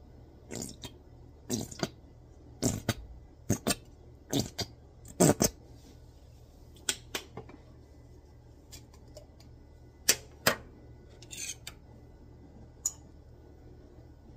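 Bottle of hot sauce shaken upside down over a plate: a run of sharp knocks, mostly in quick pairs, for about five seconds. Later a few scattered clicks and clinks as a glass salsa jar is opened and a fork is dipped into it.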